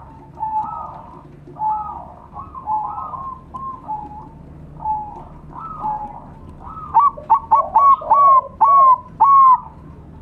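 Zebra doves (perkutut) cooing, several birds at once, in repeated trilling coo phrases. From about seven seconds in, one bird close by sings a run of about seven loud, clipped coo notes.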